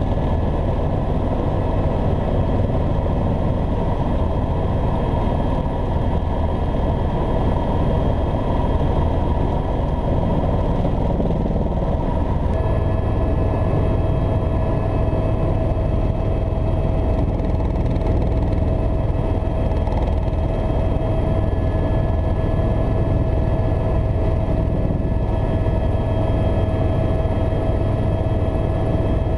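Helicopter engine and rotor noise heard from inside the cabin: a steady loud rumble with several steady whining tones over it. About halfway through, one of the whining tones grows stronger.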